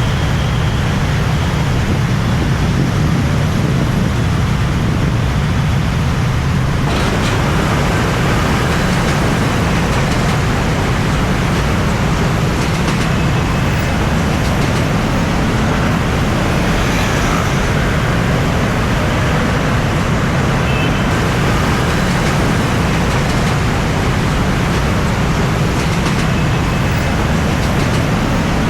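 Steady road traffic noise, a continuous rumble of passing vehicles that thickens about seven seconds in.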